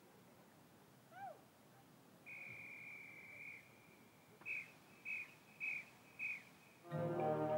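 Hush in a marching band show: a short chirp-like rising-and-falling glide, then a single high held tone that pulses four times on an even beat, about 0.6 s apart. Near the end the full brass band comes in loudly on the next beat.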